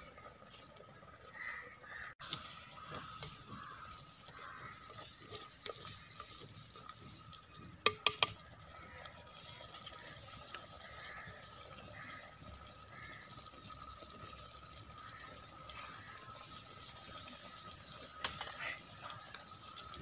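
Thick kootu bubbling as it simmers in a clay pot over a wood fire, with a quick cluster of sharp clicks about eight seconds in.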